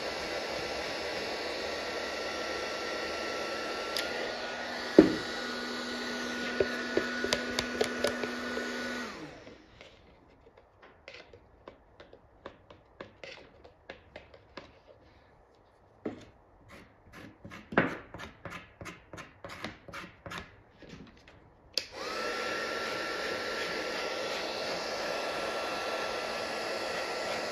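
Electric heat gun blowing hot air on curing fiberglass resin, a steady rush with a high whine. It switches off about nine seconds in and comes back on a few seconds before the end. While it is off, a wooden stick scrapes and clicks against a plastic mixing cup in quick runs of light taps, with a single sharp knock while the gun is still running early on.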